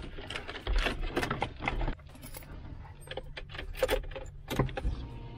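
Metal-cased car stereo and its bundle of wires rattling and clicking as the head unit is pushed into the dashboard radio slot, with a few separate sharp clicks near the end.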